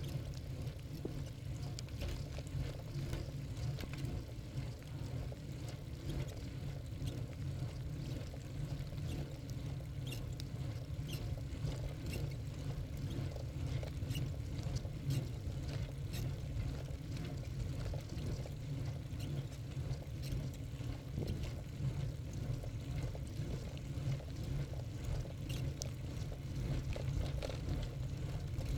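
Wind buffeting the microphone of a bicycle-mounted camera while riding, with tyre noise and frequent small rattles and clicks from the rough, cracked asphalt.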